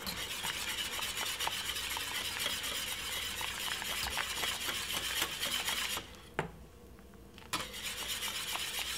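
Wire whisk beating fast against the sides and bottom of a stainless steel saucepan of thickening peanut porridge, a quick scratchy rattle. It stops for about a second and a half, with a single tap, then starts again.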